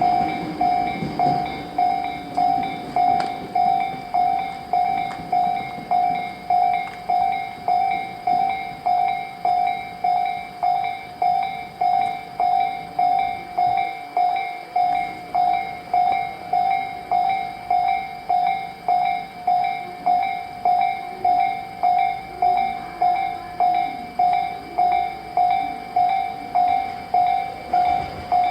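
Japanese level-crossing alarm ringing steadily, an even ding about three times every two seconds: the crossing is closed for passing trains. A train runs by underneath, its motor tone falling away in the first second.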